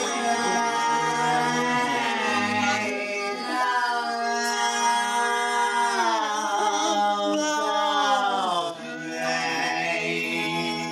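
Diesel locomotive air horn (CN 3125) sounding a held chord of several tones. The pitch sags briefly about two seconds in and drops again near the end.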